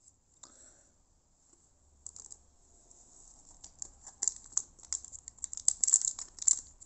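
Foil trading-card pack wrapper being handled and torn open: a run of quick crinkles and crackles that grows louder over the last few seconds.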